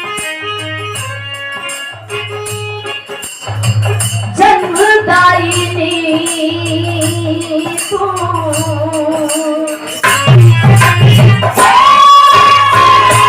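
Bhajan music intro: short keyboard notes over a steady drum beat and jingling percussion, then from about four seconds in a long held melody with vibrato rising over the beat.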